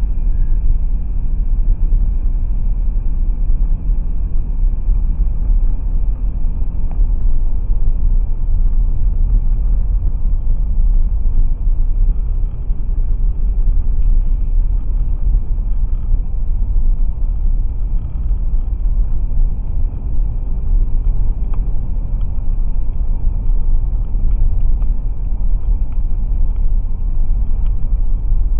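Steady low rumble of a 2017 Toyota 4Runner's 4.0-litre V6 and its tyres on pavement while cruising, heard inside the cabin through the dash cam's built-in microphone.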